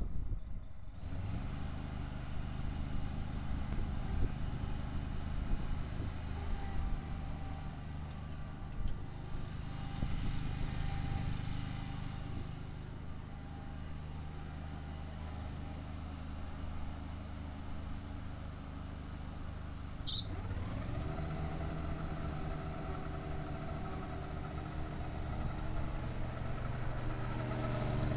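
Walker MC GHS ride-on mower's 16 hp gas engine running steadily as the mower drives over grass. About two-thirds of the way through, the engine speeds up to a higher, steady pitch.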